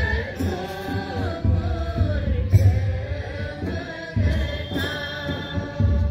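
A group of voices singing a slow, chant-like devotional song together, with music underneath.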